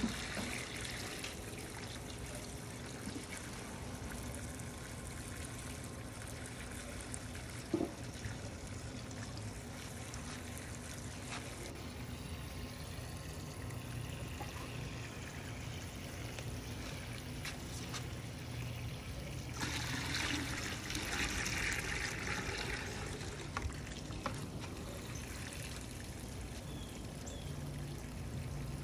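Water pouring and trickling from a plastic bucket into another bucket, a steady splashing that goes on with changes in character. One brief knock about eight seconds in.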